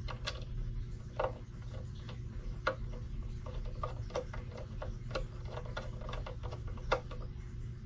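Irregular light clicks and taps of fingers handling the case of an MFJ-870 SWR/watt meter while fitting its outside screws by hand, over a steady low hum.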